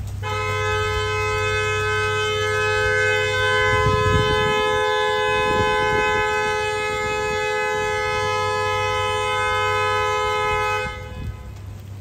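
Car horn held down in one long unbroken blast of about ten seconds, two notes sounding together, cut off sharply near the end. A driver is leaning on the horn while trapped in gridlocked traffic.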